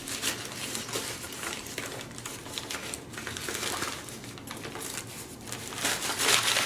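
Packing material in a tightly packed cardboard box crinkling and rustling as it is handled and pulled about: an irregular run of crackles, loudest near the end.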